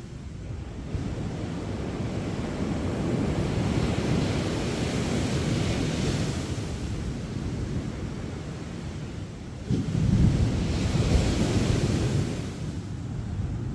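Sea surf washing ashore in two waves: one builds and eases off, then a second breaks suddenly about ten seconds in, louder, and fades.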